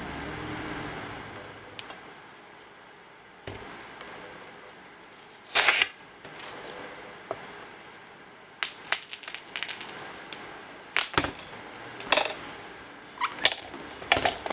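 A ripe watermelon being cut and handled on a metal pan: a short crisp crackle of rind about a third of the way in, then a run of sharp clicks, taps and knocks as the pieces are moved on the pan.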